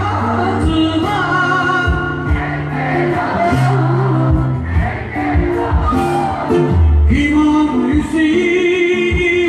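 Live concert music through a PA: a male singer sings over a band, with a sustained low bass line and regular drum hits.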